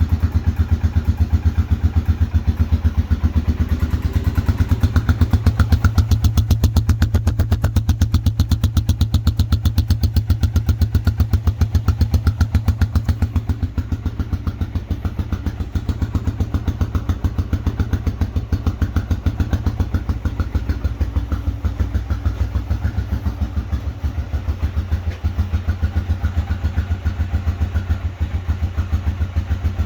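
2007 Arctic Cat DVX 250 ATV's single-cylinder engine running steadily at idle, a little louder a few seconds in.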